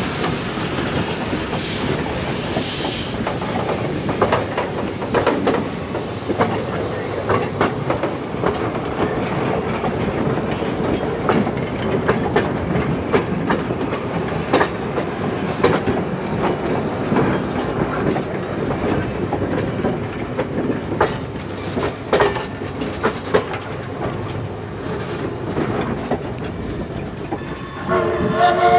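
Freight cars rolling past close by, their wheels clicking irregularly over the rail joints.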